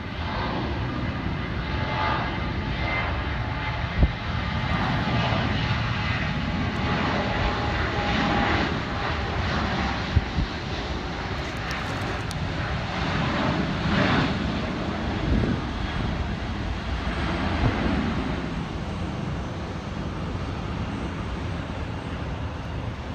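Boeing 737 jet engines at takeoff thrust, a steady jet roar as the airliner runs down the runway, lifts off and climbs away. Two brief knocks stand out about four and ten seconds in.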